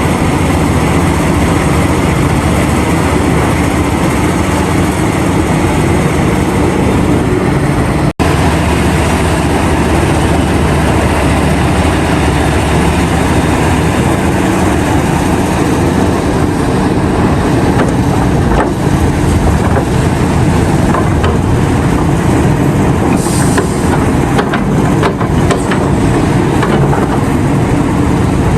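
Heavy diesel engines of a large hydraulic mining excavator and mining trucks running steadily under load, with short sharp clatters in the last third. The sound cuts out for a split second about eight seconds in.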